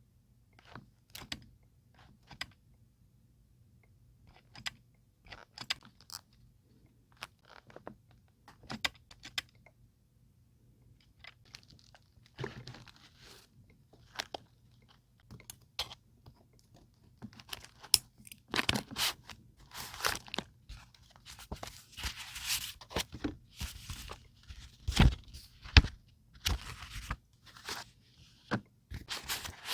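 Paper and scrapbooking supplies being handled: scattered light taps and clicks at first, then denser rustling and crinkling of paper from about halfway, with sharper knocks among it.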